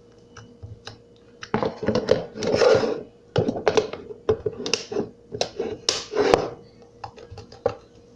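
Clear slime being squished and played with in the hands, making irregular sticky clicks and pops that start about a second and a half in.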